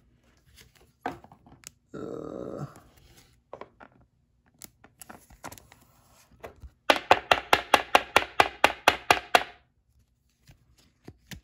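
A trading card being worked into a rigid plastic top loader: scattered clicks and a short sliding rasp about two seconds in. Near the end comes a quick run of about fifteen sharp plastic taps over two and a half seconds.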